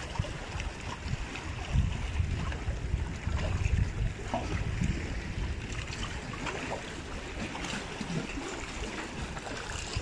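Big sea waves washing against a rock breakwater: a steady rough wash with a low rumble.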